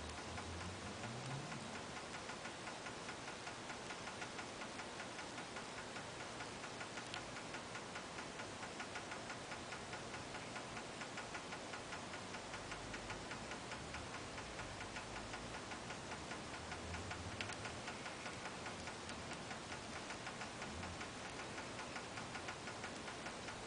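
African clawed frogs clicking during mating: a steady, rapid run of faint clicks, not their usual underwater croaking.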